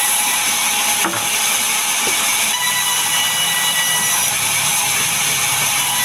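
Sawmill band saw running and ripping a wooden plank: a loud, steady hiss of blade and wood with faint whining tones, and a brief knock about a second in.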